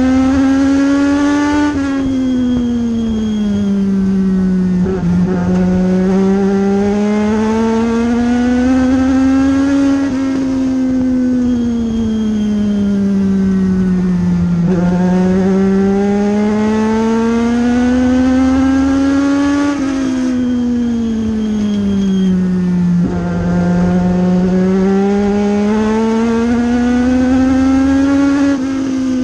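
Legend race car's Yamaha four-cylinder motorcycle engine heard from inside the cockpit at racing speed, its pitch climbing down each straight and dropping sharply when the driver lifts for the turns. The cycle repeats about every nine seconds, once per lap of a short oval, three laps' worth here.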